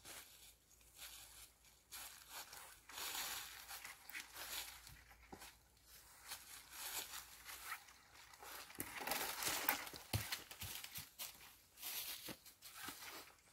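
Irregular rustling and scraping with scattered clicks as a stone-weighted throw cord is handled and pulled back down through a tree's branches, the rustling loudest about two-thirds of the way through.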